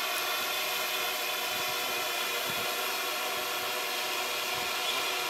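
Quadcopter's electric motors and propellers running steadily in flight: an even whine made of many layered tones.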